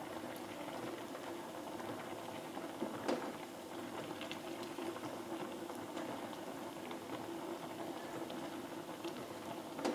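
Vegetable soup boiling hard in a metal pot on a gas stove, bubbling steadily. A spoon stirs it, with a couple of light knocks against the pot, about three seconds in and near the end.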